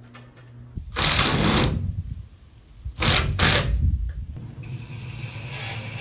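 Power driver running twice in short bursts, each just under a second and about two seconds apart, driving fasteners into the wooden roof trusses.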